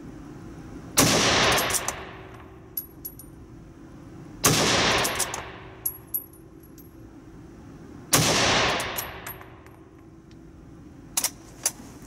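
Three shots from a Pattern 1914 .303 bolt-action rifle, about three and a half seconds apart, each ringing out with a long echo off the walls of an indoor range. Sharp metallic clicks follow each shot as the bolt is worked, with two more clicks near the end.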